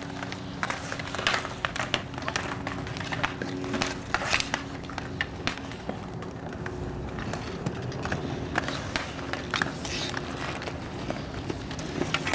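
Hockey sticks clacking against a ball and the pavement during a roller hockey game, as irregular sharp knocks scattered throughout, over a steady low hum.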